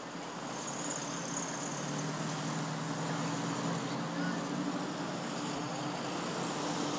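Town street traffic: a steady hum of car engines and tyre noise on cobblestones.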